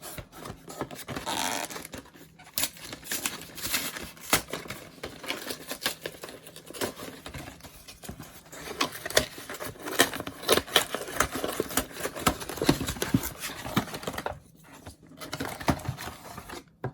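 Plastic and cardboard packaging of a trading-card collection box being torn and unwrapped: crinkling, tearing and dense rapid clicks and rustles, with a short pause about two seconds before the end.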